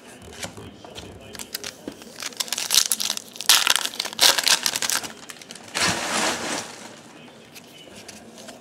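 Foil wrapper of a Topps baseball card pack being torn open and crinkled: loud crackling rustles in bursts through the middle, after light clicks of cards being handled at the start.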